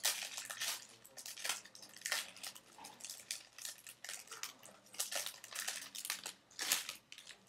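Match Attax trading-card pack's wrapper crinkling and tearing as it is opened by hand, in irregular bursts of rustling.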